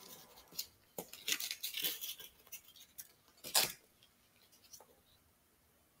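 Border paper being peeled from a transparent film dressing: a run of short papery crackles and rustles over the first few seconds, the loudest about three and a half seconds in.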